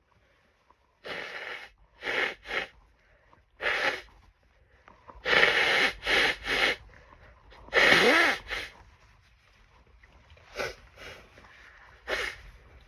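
A person's harsh sneezes in a rapid series, with sniffs between them, brought on by dust from animal bedding. The loudest come near the middle, and smaller ones and sniffs follow toward the end.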